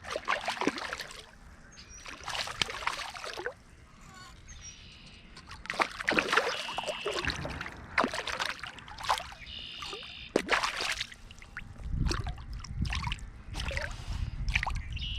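Irregular water splashing and handling noise as a hooked crappie is played and landed.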